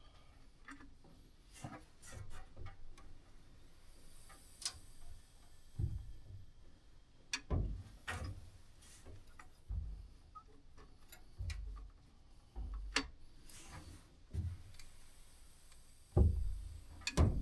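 Irregular metallic clicks and dull knocks from a breaker bar and socket on the crankshaft of a 1967 Mercury Monterey's big-block V8 as the engine is turned over by hand, a check for hard spots after a hasty start attempt that the owner fears ruined the motor.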